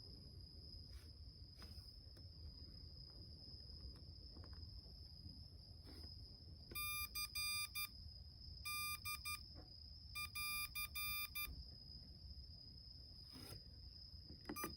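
Morse code sent as beeps: three groups of short and long on-off keyed tones at one mid-high buzzy pitch, starting about seven seconds in and stopping cleanly after about four seconds.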